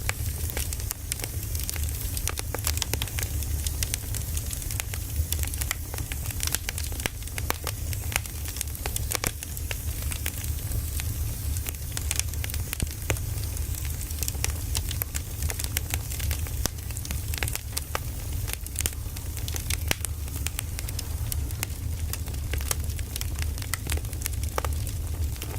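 Firewood logs burning, crackling with frequent sharp pops and snaps over a steady low rumble.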